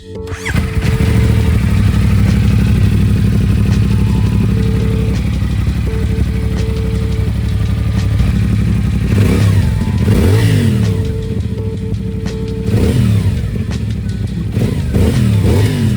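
CFMoto 450SR's parallel-twin engine running after a rebuild with a second-hand cylinder head, idling steadily and then blipped several times in the second half, the revs rising and falling quickly.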